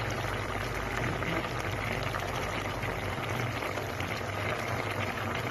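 Coconut-milk stew bubbling steadily in an uncovered aluminium pot, its sauce nearly cooked down, with a low steady hum underneath.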